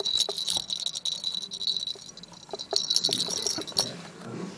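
A small jingle bell rattling and ringing in two bouts of shaking, each about a second and a half to two seconds long, with a few light knocks, as a ferret plays with it.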